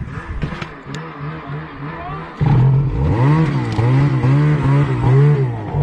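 Snowmobile engine revving, its pitch rising and falling over and over, turning much louder about two and a half seconds in.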